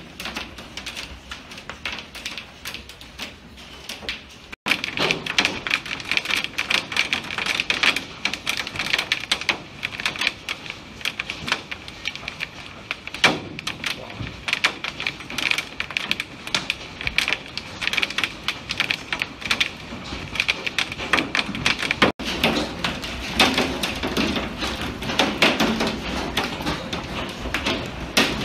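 Hailstones pelting a window pane: a dense, rapid clatter of hard ticks on the glass. It jumps much louder about four and a half seconds in.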